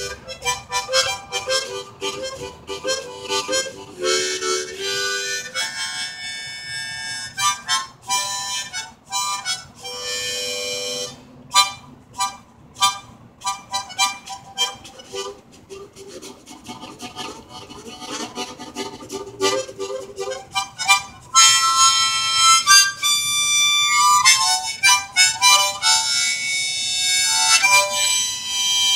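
Hohner harmonica played as a train imitation: quick, rhythmic short chords for most of the stretch, changing to longer held chords for the last several seconds.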